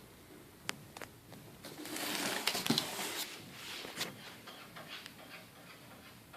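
Packaging being handled: a few light clicks and taps, then a rustle lasting about a second and a half, loudest about two and a half seconds in, followed by a sharper tap and fainter crackling.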